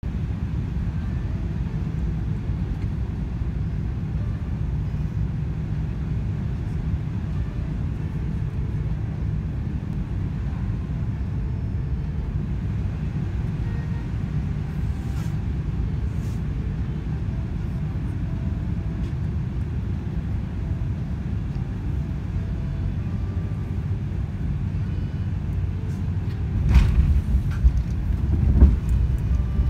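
Steady low rumble inside the cabin of an Airbus A380 on final approach. About 27 s in, the aircraft touches down with a couple of sharp thumps, and the rumble grows louder and deeper as the wheels roll on the runway.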